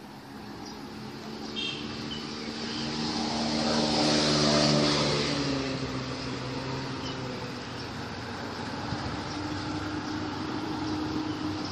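A motor vehicle passing by, loudest about four to five seconds in, with a hum whose pitch drops as it goes past.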